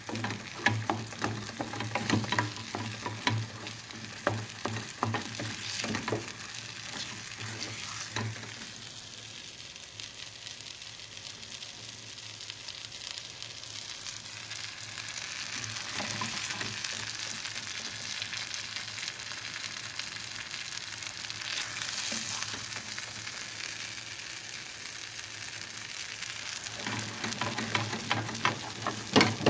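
Wooden spoon stirring thick, buttery mıhlama of cornmeal and melted cheese in a metal pan on the hob, knocking and scraping against the pan rapidly for the first several seconds and again near the end. In between, while the spoon is lifted, the mixture sizzles with a steady hiss.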